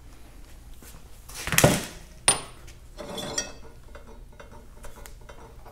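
Metal carburetor parts knocking and clinking against a steel bench vise as a freed venturi and a throttle body are handled: a loud clunk about one and a half seconds in, a sharp ringing clink just after, then a few lighter clinks.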